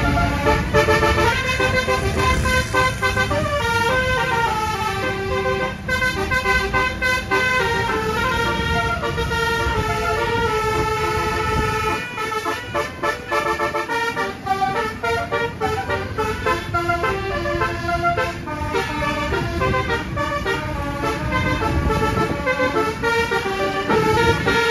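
Telolet musical horn (klakson basuri) of a Putera Utama Rahma bus playing a long run of quick stepped melodies, several notes sounding together, over low engine and road rumble.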